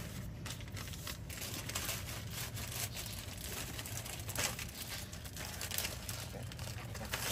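Thin plastic drink bag crinkling irregularly as it is handled, twisted and tied shut around shaved ice and juice.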